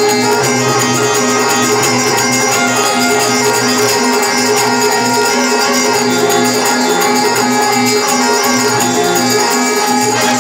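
Instrumental passage of a live devotional bhajan: harmonium and keyboard holding sustained notes over fast, steady jingling percussion and hand drum.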